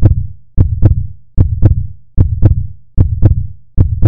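Heartbeat sound effect: loud double thumps repeating steadily, about one pair every 0.8 seconds, each beat deep with a sharp click on top.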